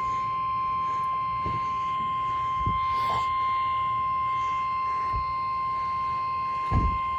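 NOAA Weather Radio warning alarm tone: a single steady high tone of about 1050 Hz, held unbroken, that signals a warning broadcast is about to follow. A few soft low thumps sound beneath it, the last and loudest near the end.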